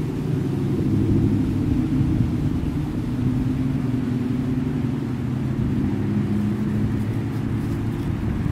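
A low, steady rumbling drone whose pitch drifts slowly.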